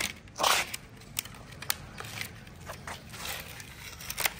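Thin clear plastic food trays set down and pushed across tiles: a loud scrape about half a second in, then scattered sharp plastic clicks and rustles.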